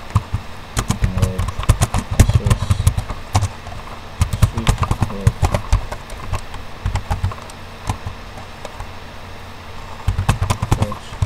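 Computer keyboard typing: uneven runs of clicking keystrokes with dull thuds under them, thinning out in the middle and picking up again near the end.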